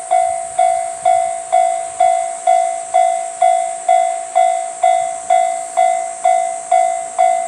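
Japanese railway level-crossing warning bell ringing, an even electronic ding struck about twice a second, each stroke fading before the next, over a steady high hiss.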